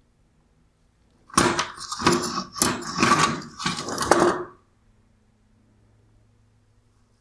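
Metal and plastic parts of a bi-xenon headlight projector clattering and rattling as it is handled and turned over, in about five rough surges over some three seconds.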